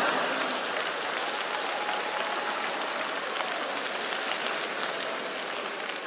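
Studio audience applauding, a steady patter of many hands clapping that slowly dies down.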